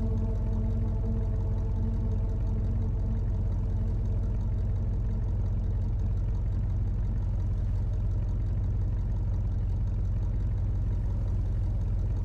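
Synthesizer music: a low, steady, rapidly pulsing bass drone, with higher held chord tones that fade out about three seconds in.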